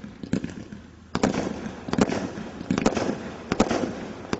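Category 3 combination Roman candle firing: a rapid, irregular series of sharp shots, about two a second, with dense crackling noise between them. There is a short lull early on, and the shots come thicker from about a second in.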